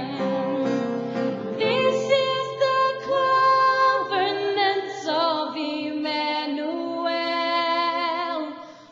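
A woman singing a gospel song solo, holding long notes with vibrato; the voice fades briefly just before the end.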